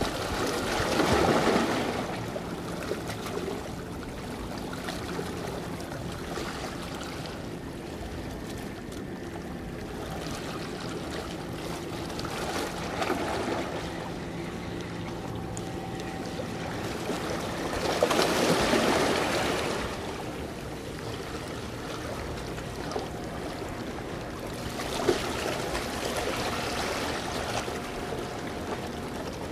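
Sea waves washing and splashing among concrete tetrapod breakwater blocks, swelling into four louder surges.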